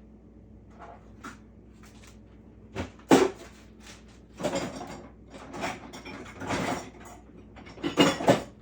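Kitchen knife cutting cooked chicken breast on a cutting board: scattered light knocks and clicks, a sharp loud knock about three seconds in, a longer stretch of scraping handling noise in the middle, and a few more loud knocks near the end.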